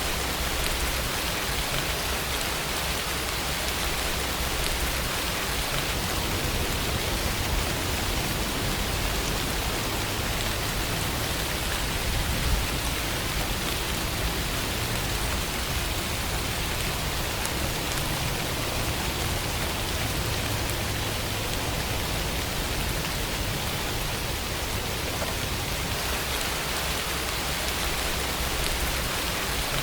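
Steady, continuous rainfall: an even hiss of rain falling on surfaces, with no thunder or change in intensity.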